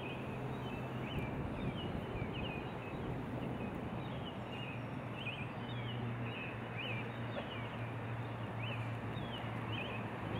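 Outdoor nature ambience: small birds chirping in short, high calls, a few every second or so, over a steady background hiss and a low hum.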